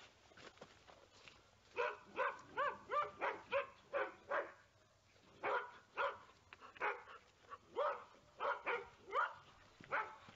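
A border collie barking in the background, quick runs of barks about three a second with a short pause about halfway: an excited dog impatient for its turn at scent-detection training.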